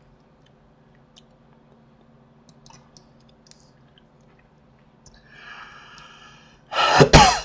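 Faint, scattered clicks of a computer keyboard and mouse. Near the end comes a faint tone with overtones lasting about a second and a half, then a short loud burst of noise.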